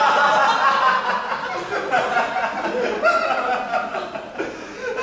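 A person's voice making loud, drawn-out wordless vocal sounds.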